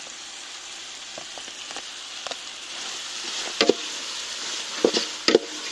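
Mutton sizzling in a steel pot over a wood fire while ginger-garlic paste is stirred in, the sizzle growing louder about three seconds in. A metal spoon knocks against the pot four or five times near the end.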